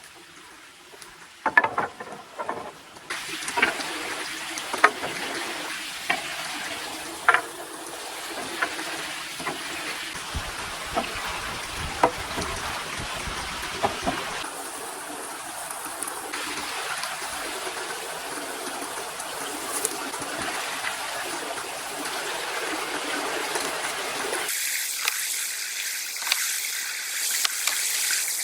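Water running and trickling, with scattered sharp knocks and clicks; the sound changes abruptly several times, about 3, 14, 16 and 24 seconds in.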